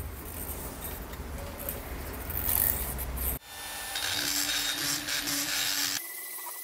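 Scratchy rubbing and handling noise for about three seconds. Then, after an abrupt cut, a Proxxon rotary tool grinds away the step in a cylinder head's intake port with a steady high-speed whine.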